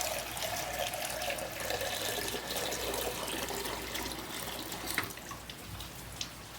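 Water running from a tap into a small pot, with a small knock about five seconds in.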